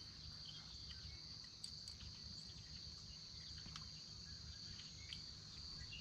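Faint steady high-pitched drone of insects, with a few faint ticks.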